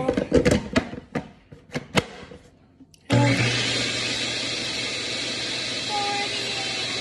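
A few clicks and knocks, then about three seconds in an electric mixer switches on and runs steadily with a low hum, beating cake batter.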